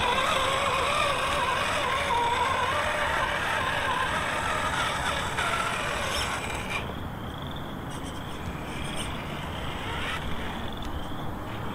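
Electric motor and drivetrain of a Redcat Gen9 RC crawler whining, the pitch rising and falling with the throttle as it climbs over rough ground. About seven seconds in, the sound turns quieter and noisier, with faint short high chirps.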